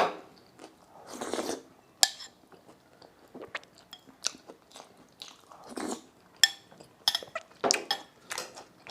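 A person biting into and chewing pan-fried pork buns, with irregular sharp crunches from the crisp fried bottoms and wet chewing between them.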